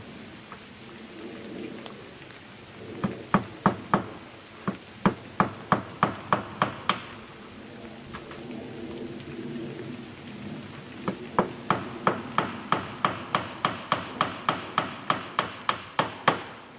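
Hand hammer driving nails, as in fixing aluminum fascia trim, in two runs of quick, even strikes at about three a second; the second run is longer. Light rain patters throughout.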